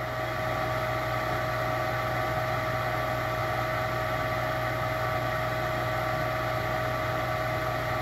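Gas furnace's draft inducer motor running with a steady hum and a thin whine, a little louder from about half a second in. The furnace is partway through its ignition cycle, with the igniter heating and the gas valve not yet energised.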